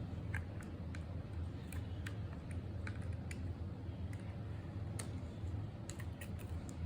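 Irregular light clicks and taps from hands working on a Dell Latitude 7650 laptop, over a steady low hum.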